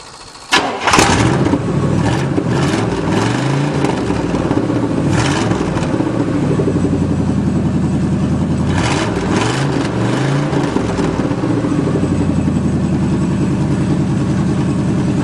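The 1977 GMC 4x4 truck's engine fires up about half a second in on the first try, running on its freshly cleaned and reassembled carburetor. It is revved up and back down twice, then settles into a steady idle.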